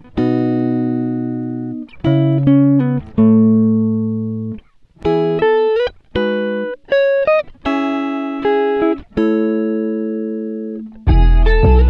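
Background music on a plucked guitar: single notes and short chords, each ringing and fading. A fuller passage with deep bass notes comes in near the end.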